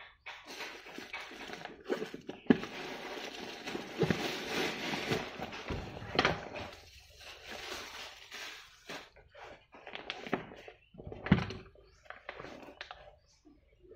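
Crinkly paper stuffing and the fabric of an insulated bag being handled, rustling in a dense spell for the first half and in short bursts later, with a few sharp knocks and clicks.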